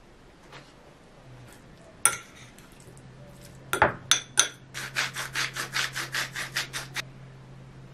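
A sharp click about two seconds in, then a few loud strokes and a quick, even run of scraping strokes, about five a second, that stops about a second before the end. A low steady hum comes in near the middle.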